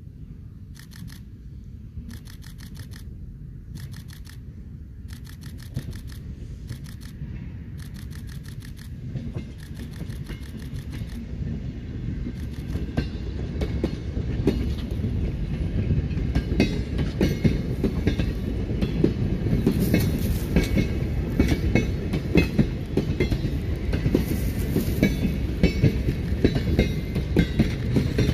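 Stainless-steel suburban passenger carriages rolling slowly past on a shunting move, the wheels clicking over the rail joints. The rumble grows steadily louder from about halfway through as the cars draw level.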